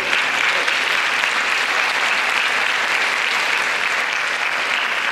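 Audience applauding, steady clapping from many people.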